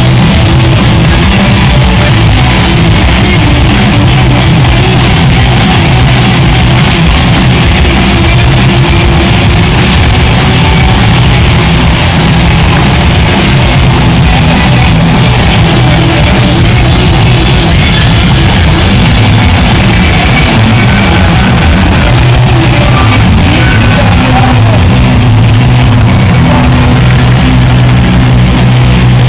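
A punk rock band playing live at full volume, with distorted electric guitars, bass guitar and drums.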